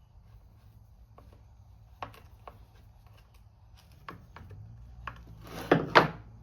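Light clicks and taps of metal parts and tools being handled while a bolt is fitted to a chainsaw, then two loud, harsh scraping sounds close together near the end.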